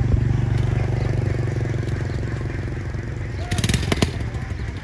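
A vehicle engine running steadily with a low, even drone. A brief metallic rattle comes about three and a half seconds in.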